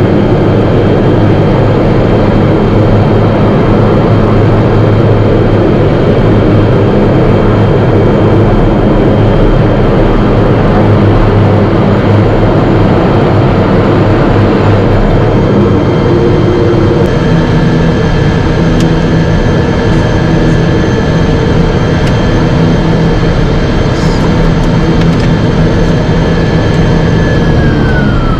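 Single-engine propeller aircraft's engine and propeller running at low power, heard from inside the cockpit, steady with a whine. Near the end the whine drops in pitch as the engine starts to spool down.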